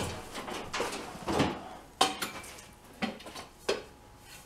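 A string of sharp knocks and clatters as a broom is shifted among hard shop clutter, the handle bumping against things.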